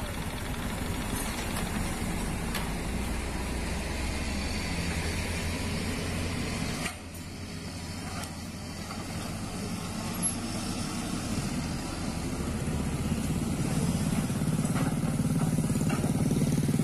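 Diesel engine of a heavily loaded cargo truck running steadily as it pulls past and drives off. The engine noise grows louder near the end as motorcycles pass close by.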